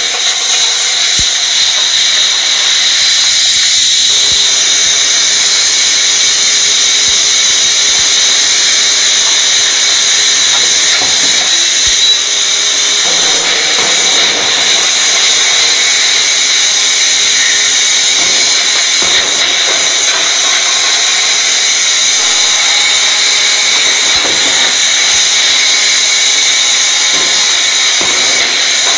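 Steady, loud machine noise from a hot-forging line: a high-pitched whine with hiss, with no distinct hammer blows.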